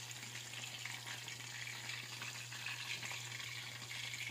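Chicken necks deep-frying in hot oil in a wok: a steady sizzle with fine crackling spits.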